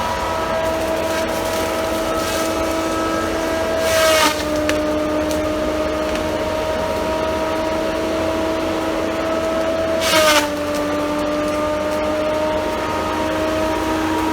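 Engine of a heavy mechanized tree-clearing machine running steadily, with two short loud bursts of harsh noise about six seconds apart. The engine note drops slightly after each burst, as if taking load.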